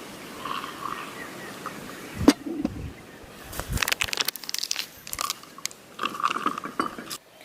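Close crunching and clicking handling noises, with one sharp click a little over two seconds in and a quick run of clicks about a second later.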